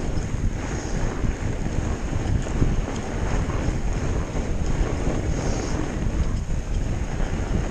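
Wind buffeting the microphone of a camera on a moving fat bike, over the steady rumble of the bike rolling along a snowy trail.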